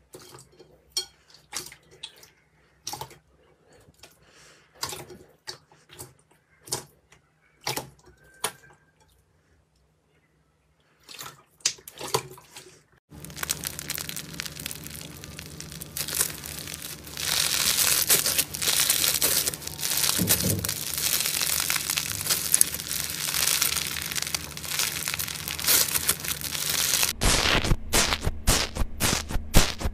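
Slime being handled: scattered sharp sticky clicks and pops for the first dozen or so seconds, then a dense, continuous wet crackling from about thirteen seconds in, changing to a choppier texture near the end.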